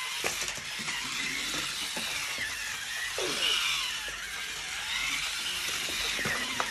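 Little Tikes Tumble Train toy engine's small battery-powered motor whirring as it runs fast around its plastic track on a fresh set of batteries, its pitch wavering as it climbs and dips, with a few light clicks from the wheels and track.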